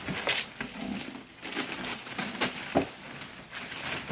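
Rustling and crinkling of a wrapped present being handled, with a sharp knock about three seconds in.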